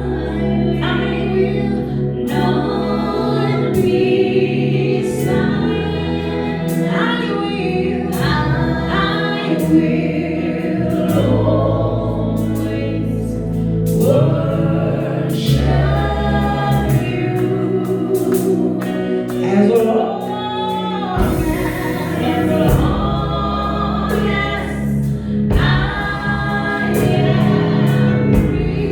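Gospel choir singing a worship song over band accompaniment, with held bass notes that change every few seconds and a light percussion beat.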